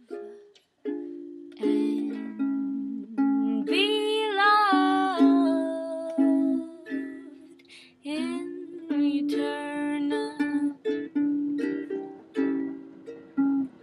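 Ukulele playing a slow tune in picked notes and chords. Over it, a high voice holds a long sliding note from about four seconds in, which fades to the ukulele alone.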